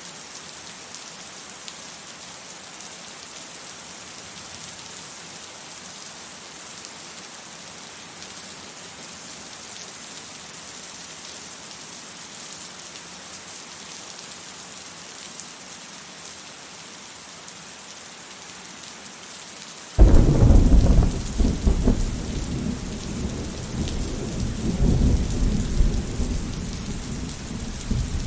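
Steady rain hissing, then a sudden loud thunderclap about two-thirds of the way in, followed by a deep rolling rumble that goes on under the rain to the end.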